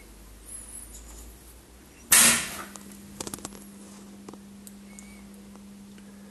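Siemens W217 level oscillator switched on: a loud click-thump from the power switch about two seconds in, a few lighter clicks after it, then a steady low hum from the running unit.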